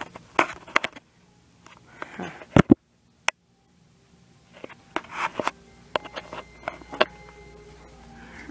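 Handling noise from a handheld camera being carried about: rustling, scattered clicks and knocks, and two loud thumps about two and a half seconds in, followed by a second of near silence.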